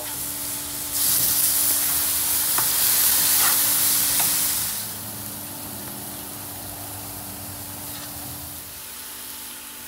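Chicken breasts sizzling on a hot Blackstone propane griddle, loudest from about a second in until nearly five seconds, then settling to a quieter steady sizzle. A few light clicks of a metal spatula on the griddle come during the loud part.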